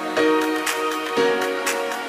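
Background music: held chords that change about twice over a steady beat of short strokes, roughly two a second.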